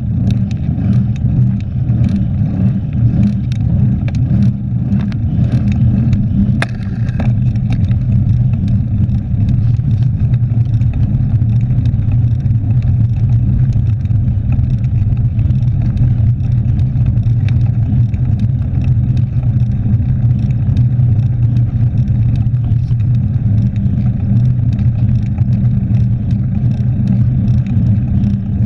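Steady wind and road rumble on the microphone of a camera mounted on a mountain bike riding fast on asphalt, with scattered rattling clicks from the bike during the first several seconds.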